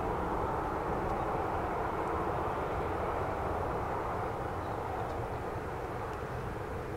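Boeing 737-800's CFM56-7B turbofan jet engines running, a steady jet rumble and hiss that eases slightly in loudness in the second half as the aircraft moves away.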